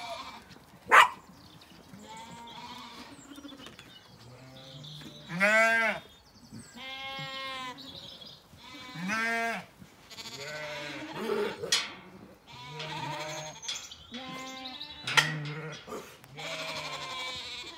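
Zwartbles sheep bleating over and over, about a dozen calls of varying pitch, some deep and some high. A sharp knock sounds about a second in.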